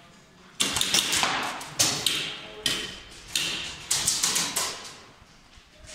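Airsoft guns firing in an echoing warehouse hall: sharp cracks, some single and some in quick strings, with the densest run about four seconds in. Each crack rings off the hard walls.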